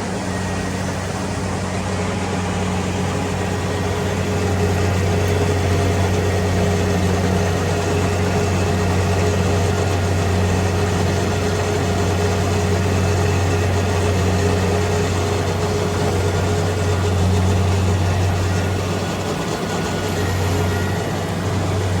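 Rice combine harvester's engine running steadily as a deep, even hum, easing briefly near the end.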